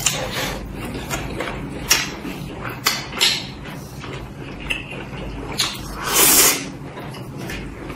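Close-miked eating sounds: wet chewing and lip-smacking with sharp mouth clicks. About six seconds in comes a loud half-second slurp as a mouthful is sucked in off the chopsticks.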